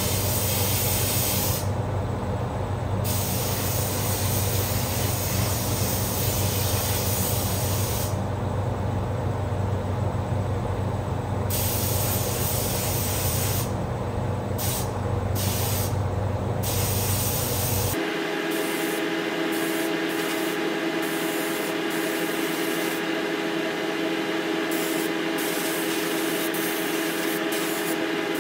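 Air spray gun hissing as paint is sprayed onto a truck rear axle, over the steady rush of a paint booth's ventilation fans. The spray hiss stops and starts several times as the trigger is let off. About two-thirds of the way through, the sound changes abruptly to a steady hum with several pitched tones.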